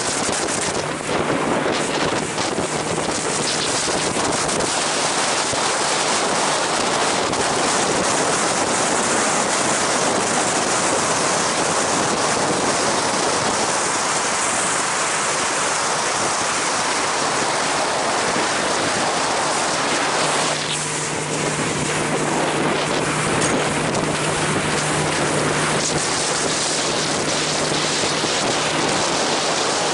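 Wind buffeting the microphone and water rushing past the hull of a small motorboat running at speed. A steady low engine hum runs underneath and comes forward about two-thirds of the way in.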